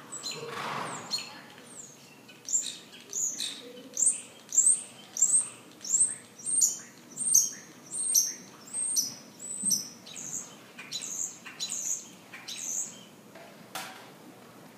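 A bird chirping over and over in an even rhythm, about one and a half short high chirps a second for some ten seconds, after a brief noise at the start.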